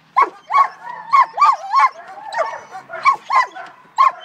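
A German Shepherd barks rapidly and high-pitched, about three barks a second, with a brief whine between barks about two seconds in. It is barking in drive while a helper agitates it during bitework training.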